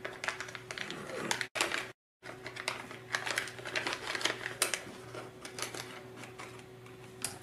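Plastic zip bag being handled and crinkled, with small irregular clicks and rustles of the plastic kit parts inside, over a faint steady hum. The sound cuts out completely for a moment about two seconds in.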